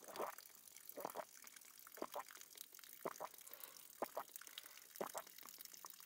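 Someone drinking spring water from a plastic bottle: faint gulps with the water sloshing in the bottle, about one a second.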